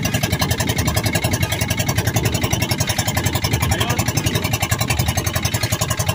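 A boat's engine running steadily, with a fast, even chugging beat.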